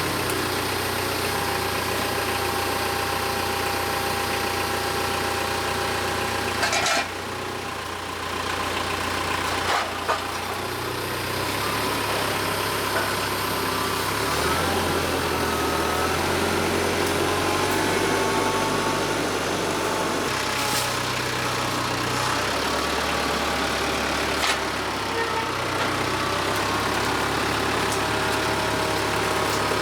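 Compact tractor's diesel engine running steadily under varying load, its pitch shifting up and down as it works. There are a few short knocks about 7 and 10 seconds in.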